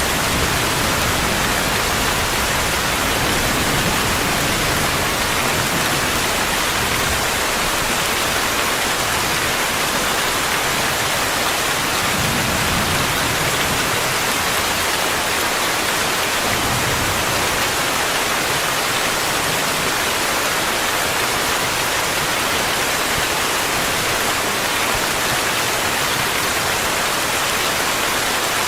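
Steady rainfall, an even hiss that holds at the same level throughout, with no single drops or other events standing out.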